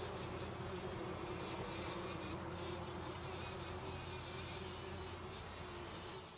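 A flying insect buzzing steadily, its pitch wavering slightly.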